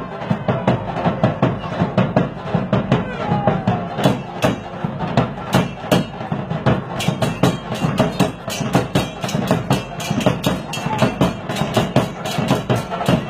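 Dance music with a steady, fast percussion beat, played loud through a sonidero sound system.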